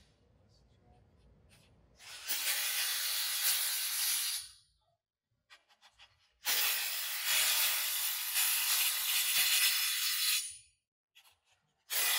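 A cordless power driver spinning a socket to tighten the nuts on a grooved pipe-tee housing until its bolt pads meet metal to metal. It runs in two bursts, about two and a half seconds and then about four seconds, with a few light clicks between them as the socket is moved to the next nut.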